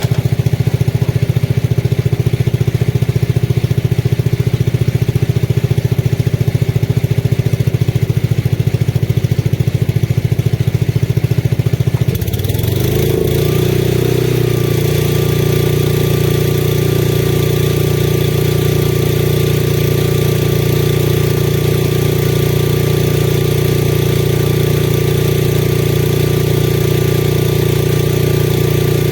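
Engine of a Lincoln Weldanpower 225 welder-generator running steadily. About twelve seconds in, its note shifts over a couple of seconds and then settles into a new steady running speed. A hiss and a thin steady whine join in at the same time.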